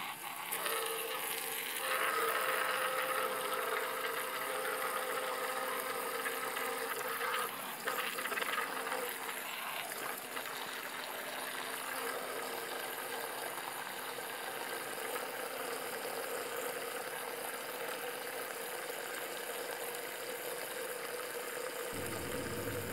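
Small 12V electric water pump running steadily with a constant hum, while a jet from a pistol-grip spray nozzle hisses into a plastic bucket.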